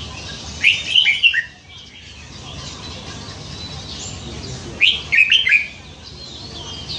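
Caged red-whiskered bulbul singing two short, loud phrases of quick whistled notes, the first about a second in and the second about five seconds in.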